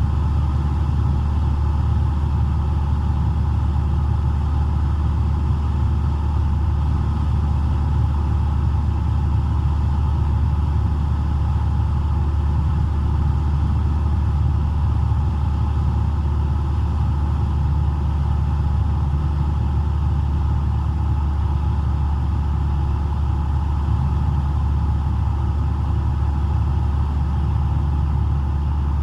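Cessna 172's four-cylinder Lycoming engine and propeller heard from inside the cockpit in flight: a loud, steady drone that holds the same pitch and level throughout.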